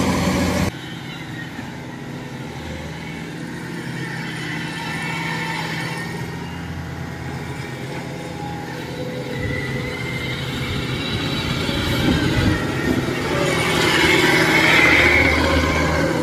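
Kubota DC-105X combine harvester's diesel engine and machinery running steadily as it travels on its tracks. The sound grows louder toward the end as the machine comes close. A louder sound in the first second cuts off abruptly.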